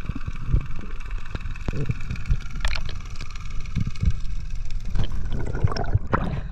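Underwater sound picked up through a waterproof camera housing: low rumble and irregular knocks from water movement and handling over a steady hum, with a splashy burst about six seconds in as the camera breaks the surface.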